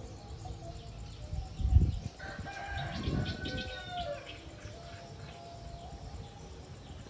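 A low thump about a second and a half in, then a rooster crowing once for about two seconds.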